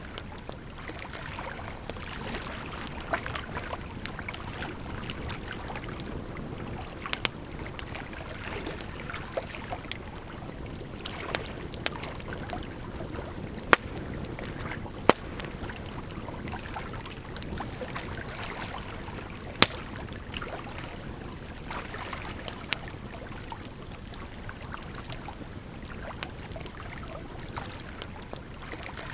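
Firewood burning in a fire, crackling with scattered sharp pops, a few much louder than the rest, over a steady rush of running water.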